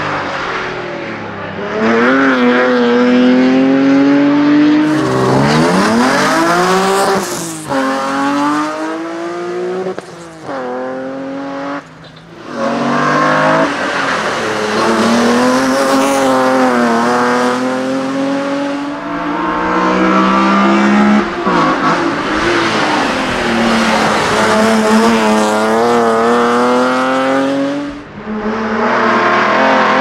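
BMW E30 hillclimb race car with a 3-litre engine run hard. The revs climb and drop sharply with each gear change as the car passes close and pulls away, over several runs.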